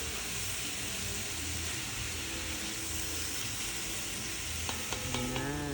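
Mixed vegetables sizzling steadily as they stir-fry in oil in a pan, with a few light clicks about five seconds in.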